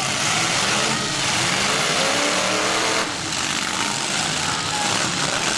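Demolition derby cars' engines running and revving in the arena, over a dense, steady wash of noise.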